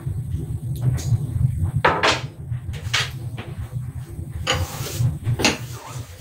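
Kitchen items being handled at a counter: a string of knocks, clatters and scrapes of dishes and cupboard or drawer parts, over a steady low hum.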